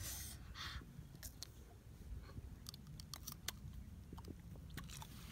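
Faint, scattered crisp clicks and crunches of crunchy sour fruit being eaten, with a short breath of air at the start.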